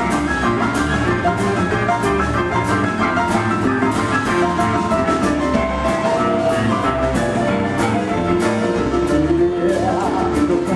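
Boogie-woogie played live by a band: rolling piano over a steady drum beat.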